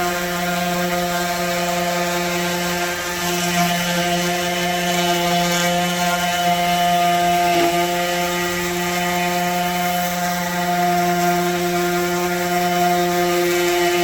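Cordless electric sander running steadily while rough-sanding wooden table boards. Its motor keeps one even humming pitch under the rasp of the pad on the wood, with one short knock a little over halfway through.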